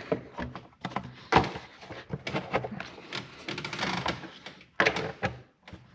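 Irregular clicks and knocks of the air intake tube and nearby engine-bay parts being handled and fitted back into place, with a few sharper knocks about a second and a half in and near the end.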